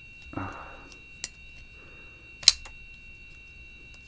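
Spartan Blades Harsey 3.25-inch titanium frame-lock folding knife on a washer pivot, its blade being flicked open and closed by the thumb stud in tries at a lazy flick that fails to deploy: a light click about a second in and a sharp, loud snap of the blade about two and a half seconds in. A short soft rustle of handling comes near the start.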